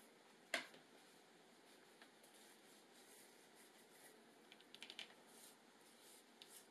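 Quiet hand-work sounds of bookbinding, mostly near silence. About half a second in there is one sharp click as a bone folder meets the edge of a paper-covered board. After that comes faint light scraping, then a quick run of small clicks and ticks around five seconds in.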